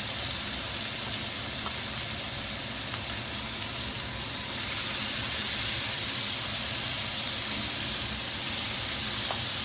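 Marinated fish pieces sizzling in hot oil on a flat tawa, a steady frying hiss as more pieces are laid onto the pan.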